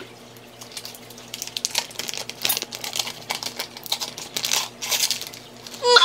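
Paper wrapper being peeled off a stick of butter, crinkling and crackling irregularly as it is pulled away.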